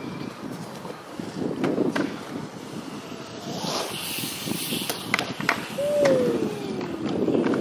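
BMX bike tyres rolling on a concrete skatepark with a steady rumble and scattered clicks from the bike. About five seconds in come a few sharp knocks as the bike lands, then a short falling squeal.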